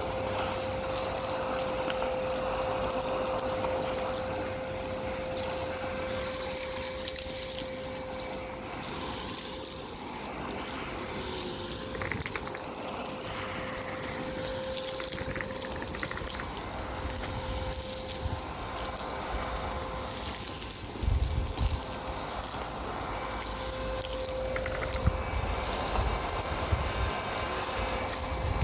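Miele Complete C2 Tango EcoLine canister vacuum running steadily: a constant whine over rushing suction air, with faint crackles now and then as grit is drawn up from the pavement.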